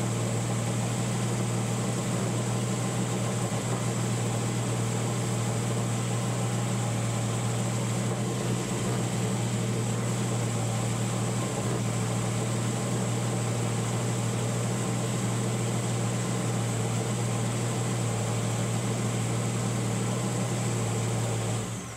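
Race car engine of a NASCAR Xfinity Series Toyota GR Supra running steadily at a fast idle, with no revs, during its start-up check; it cuts off suddenly near the end.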